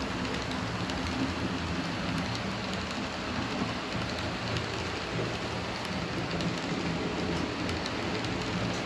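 Model passenger train rolling along the track behind a diesel locomotive: a steady rushing hiss of wheels on the rails, with a low hum and a few faint clicks.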